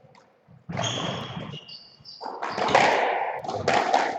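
Squash rally: the ball is struck by rackets and smacks off the court walls with a ringing echo, with high squeaks of shoes on the court floor.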